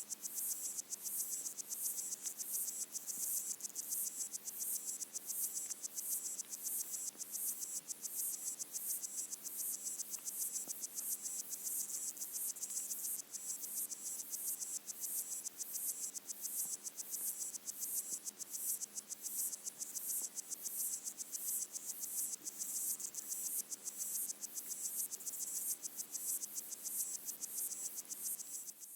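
Underwater chorus of pygmy water boatmen (Micronecta) stridulating, picked up by a hydrophone in a freshwater pond: a dense, high-pitched chirring that pulses steadily and evenly.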